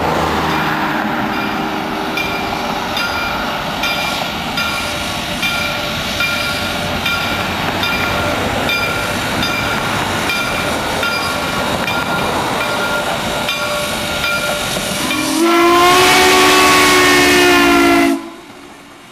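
Reading and Northern 425, a 4-6-2 Pacific steam locomotive, moving slowly past with its bell ringing in steady, even strokes over the rumble and hiss of the engine. Near the end it sounds a loud steam whistle blast of about two and a half seconds that cuts off sharply.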